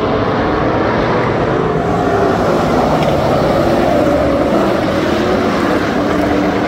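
A pack of USRA stock cars' V8 engines running at racing speed on a dirt oval. Several engine notes rise and fall together over a steady loud roar as the cars go through the turn.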